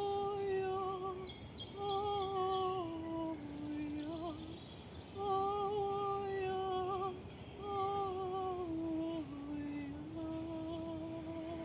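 A woman's wordless singing: a slow chant in long held notes, with phrases that step down in pitch at their ends.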